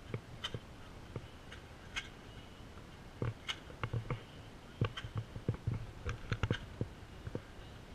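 Faint, irregular clicks and light taps of camera handling noise, coming thickest through the middle few seconds.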